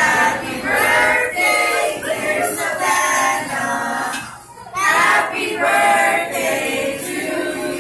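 A group of mixed voices, children among them, singing a birthday song together, with a short pause a little past halfway.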